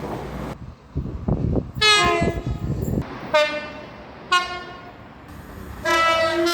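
Train horn sounding repeated blasts: one at about two seconds, a shorter pair soon after, and another starting near the end, after a low rumble from the train in the first second or so.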